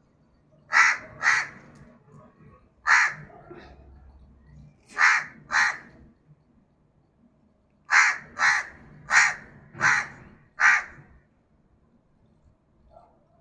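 A crow cawing: about ten short, harsh caws in bunches, a pair, a single caw, another pair, then a run of five.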